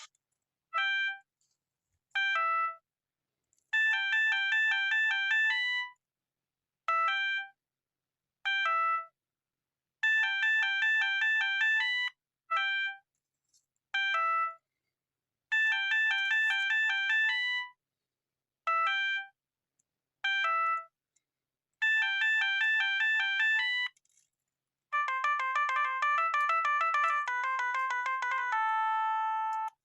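Siemens A65 mobile phone playing an incoming-call ringtone: an electronic melody of two short notes followed by a longer run of notes, repeating about every six seconds with silent gaps between. Near the end a different, busier ringtone melody takes over.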